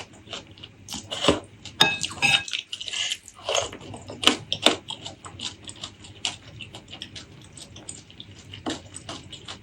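Close-miked eating sounds: chewing with many small wet mouth clicks and smacks. About two seconds in comes a brief ringing clink of a utensil against a dish.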